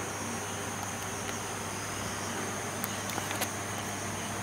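Steady high trilling of night insects, with a low hum underneath and a few faint clicks about three seconds in.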